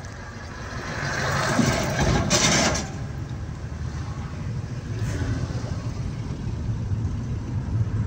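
A car's engine and road noise heard from inside the cabin as a steady low rumble. From about a second in, an oncoming Scania tipper truck passes close by: its noise swells to a loud whoosh and falls away just before three seconds in.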